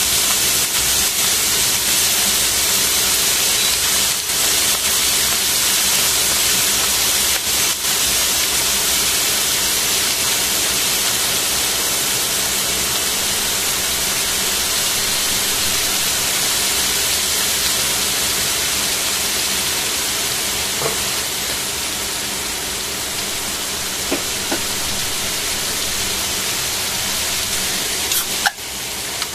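Thin slices of raw pork frying in oil in a stainless steel pan: a steady sizzling hiss that eases off slowly, with a few sharp pops in the last ten seconds.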